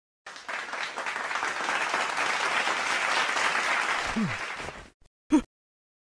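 Audience applause, a steady clapping for about four and a half seconds that fades and stops, followed by one short, sharp sound effect about a second later.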